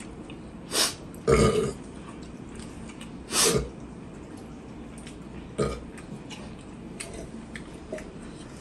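A man burping several times while eating a large amount of rice: a short one just under a second in, louder ones at about one and a half and three and a half seconds, and a shorter one near six seconds.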